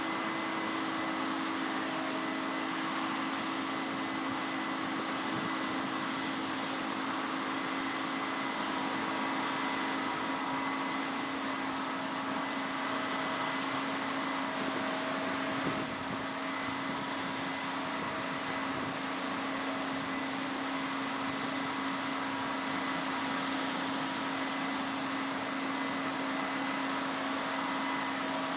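Case combine harvester running steadily: a constant machine drone with several steady humming tones, without a break.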